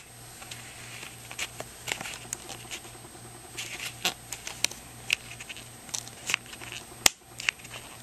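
Rubber-gloved fingers handling a netbook's plastic case parts and ribbon-cable connector: scattered light clicks and scratches, with one sharp click about seven seconds in. A low steady hum runs underneath.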